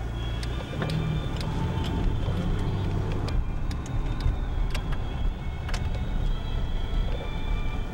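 Car running, heard from inside the cabin: a steady low engine and road drone with a few light clicks scattered through it.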